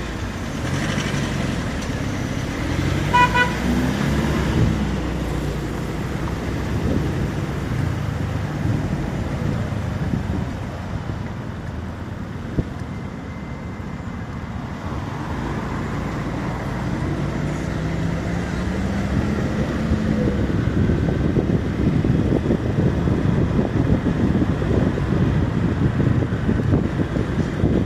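Car engine pulling through the gears while driving, its pitch climbing and dropping several times. A short horn toot about three seconds in. Road and wind noise grows louder toward the end.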